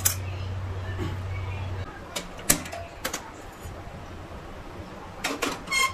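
Sharp clicks from a gas stove being lit, then a quick run of metallic clinks with a short ring, like a steel saucepan set on the burner's grate. A low steady hum stops about two seconds in.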